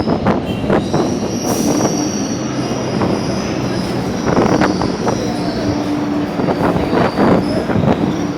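Electric multiple-unit train heard from inside its motor coach while running: the traction motors give a steady whine over the rumble of the wheels, and the wheels knock over rail joints now and then, in clusters about four and seven seconds in.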